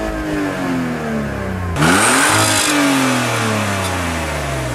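Car engine being revved in park. The engine note falls back from a high rev, is blipped sharply up again about two seconds in, and slowly falls back.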